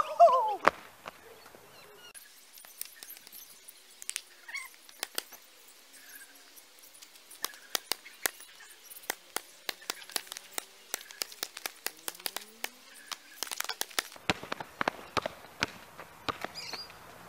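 A basketball being dribbled on an asphalt court: sharp bounces about two a second through the middle, coming thicker near the end as the players contest the ball. A short loud call sounds right at the start.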